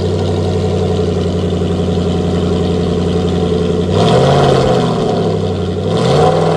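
Aston Martin Vantage GT8's naturally aspirated V8 idling loudly through its factory titanium exhaust, then revved twice in quick blips about four and six seconds in.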